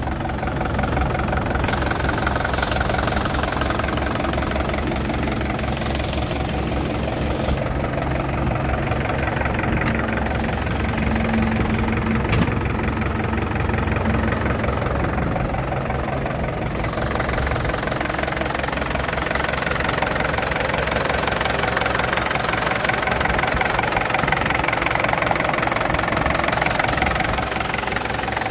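International A554 tractor engine idling steadily.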